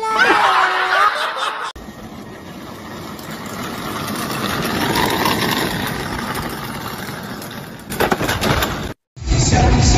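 A motor vehicle passing on a street: a rushing noise that builds to a peak about halfway through and then fades away. It follows a brief loud held tone that bends in pitch at the very start.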